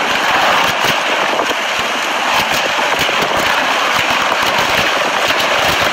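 Steady roar of tornado-strength wind and driving rain, with continual crackling and rattling throughout.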